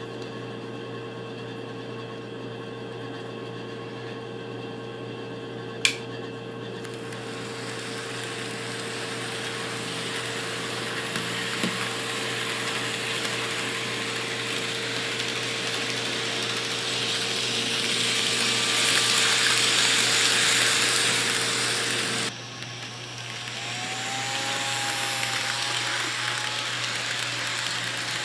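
N scale model train running on the track: a small electric motor whirring with wheels rolling on the rails, growing louder as the train comes near and passes. A sharp click comes about six seconds in. The sound cuts off abruptly after about twenty seconds, and another model train then runs by close with a whining motor.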